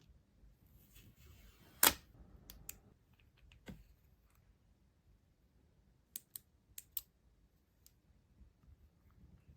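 Packaging and items being handled during an unboxing: a sharp click about two seconds in, then scattered lighter clicks and taps, with a quick run of four about six to seven seconds in.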